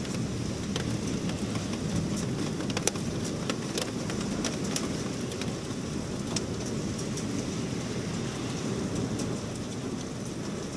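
Heavy thunderstorm rain pouring steadily, with scattered sharp ticks, several a second, as drops strike close by.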